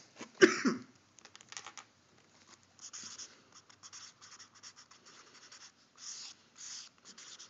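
Black marker pen scratching on paper in a run of short strokes as a word is written by hand. A brief louder sound about half a second in.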